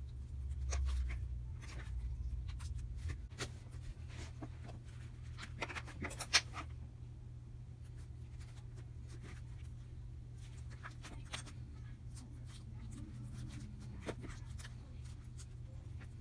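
Pink slime being stretched, folded and squeezed by hand, giving scattered small crackles and pops, the sharpest about six seconds in, over a steady low hum.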